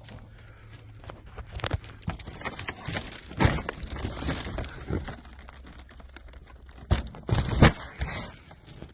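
Handling noise: rustling, knocks and a few thuds as cardboard-packed firework shells and boxes are picked up and moved, with the louder thuds near the middle and toward the end.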